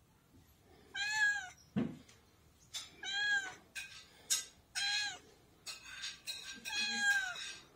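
Domestic cat meowing four times, about two seconds apart, each meow rising and then falling in pitch: the cat is asking to be fed.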